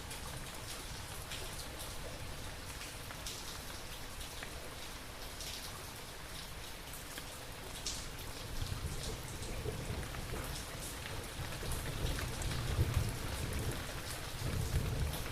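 Steady rainfall with distinct drops pattering on a surface. Low rumbles of distant thunder build up in the second half.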